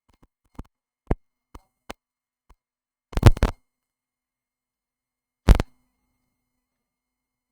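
A series of sharp clicks and knocks: a few faint ones in the first two seconds, a loud rattling cluster a little after three seconds, and one more loud knock at about five and a half seconds. Between them it is silent, with no hum or hiss.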